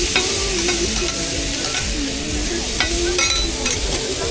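Food frying on a hot griddle with a steady sizzle, broken by a few sharp clicks and scrapes of a metal spatula.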